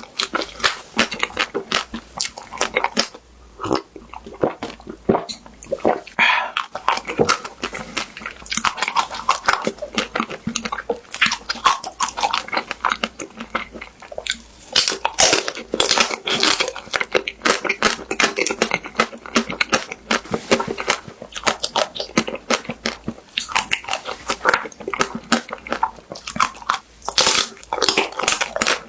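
Close-miked biting and chewing of a crisp-shelled ice cream bar, the brittle coating cracking and crunching in a dense, continuous run of crackles.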